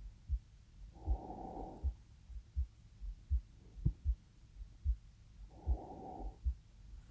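A young woman's heartbeat picked up close against her body: steady low thumps, about 80 a minute. Two slow breaths are heard, about a second in and again near the end.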